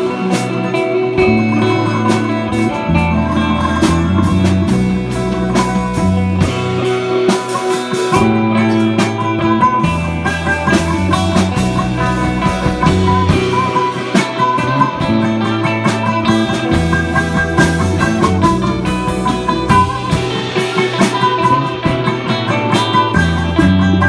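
Live instrumental rock jam, improvised: electric guitar, cigar box guitar, electric bass and drum kit playing together, with held bass notes changing every second or two under steady drum hits and no vocals.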